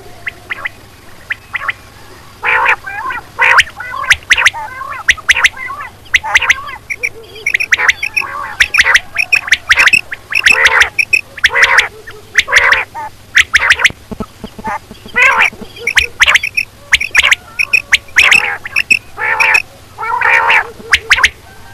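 Quail calling over and over: short, harsh calls in quick runs and clusters, one after another with brief gaps.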